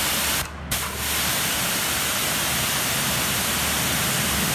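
High-pressure washer nozzle blasting a water jet at full pressure, about 160 bar: a steady, loud hiss, with the low hum of the 3 kW electric motor and pump under it. The hiss dips briefly about half a second in.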